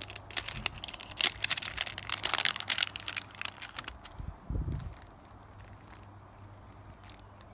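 Thin plastic wrapping of an L.O.L. Surprise ball's packet crinkling and tearing as it is pulled open by hand, in dense crackles for the first few seconds. A soft low thump comes about four and a half seconds in, then a few lighter rustles.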